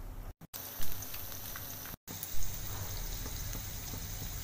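Batter-coated chicken kalmas deep-frying in hot oil: a steady fine sizzle of bubbling oil, with two brief louder surges.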